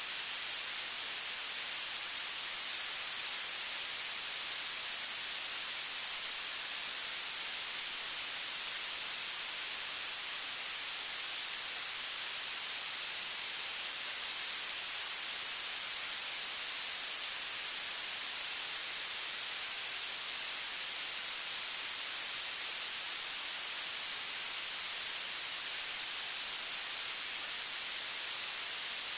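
Steady, even hiss of static, brightest in the high end, with no other sound over it.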